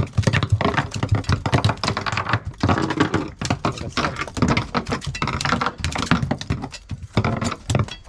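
A freshly landed fish thrashing on a fiberglass boat deck: a rapid, irregular run of slaps and knocks.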